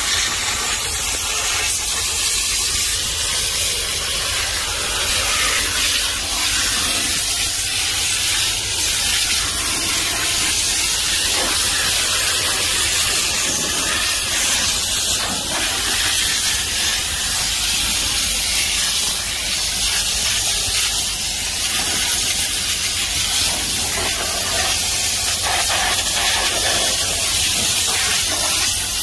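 Steam cleaner's wand hissing steadily as it jets steam onto a car's door jambs and door panel, with a low steady hum underneath.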